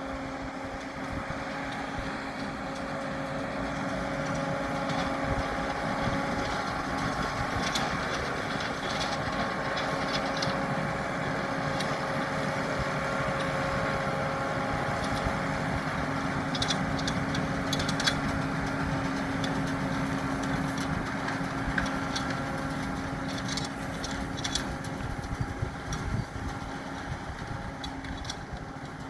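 New Holland T7 245 tractor engine running steadily while pulling a working round baler, growing louder over the first few seconds, with short light ticks and rattles now and then.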